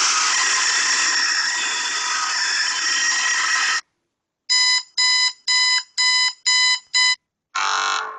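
Phone ringtone alarm sounds: a loud continuous ring for nearly four seconds, then six short electronic beeps at about two a second, then a brief ring that fades away.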